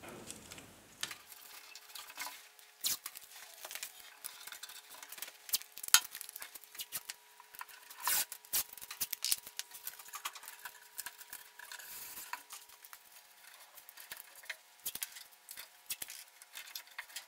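Painter's tape being pulled off the roll, torn and pressed along the wooden edges of a dresser's drawer openings: irregular crackles, rips and light taps, the sharpest about six seconds in. A faint steady tone runs underneath from about a second in.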